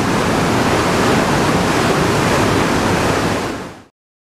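Steady rush of flowing water, fading out quickly near the end.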